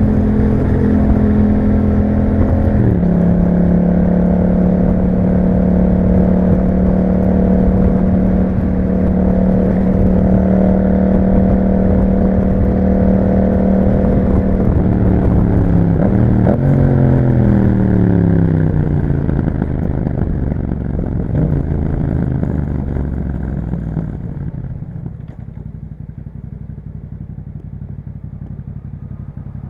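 2021 Yamaha MT-07's parallel-twin engine through an Akrapovic exhaust, held at steady revs with a gear change about three seconds in. About halfway through, the revs fall away as the bike slows, and the engine settles to a quieter idle for the last few seconds.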